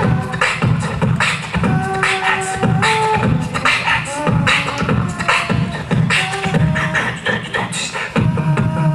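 Live beatboxing into a handheld microphone: a steady beat of mouth-made drum hits, with held notes stepping between pitches over it.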